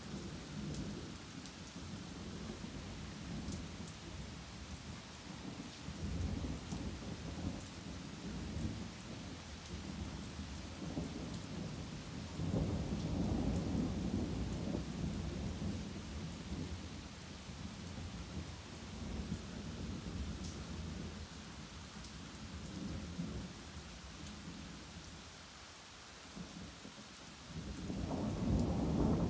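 Steady rain falling, with thunder rumbling on and off. The loudest, longest rumble swells about halfway through, the storm eases to mostly rain shortly before the end, and then another rumble builds.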